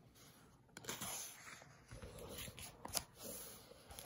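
Pages of a hardback picture book being turned by hand: faint paper rustling with a few short sharp clicks.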